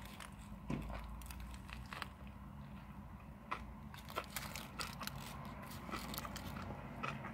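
A bite into a banh mi sandwich on a crusty roll, then close chewing, with scattered short crisp clicks from the bread.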